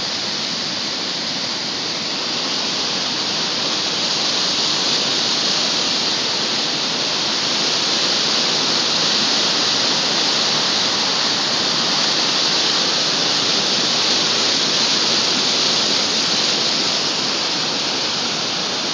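Loud, steady rush of fast, turbulent white water pouring through a river channel, growing a little louder after a few seconds.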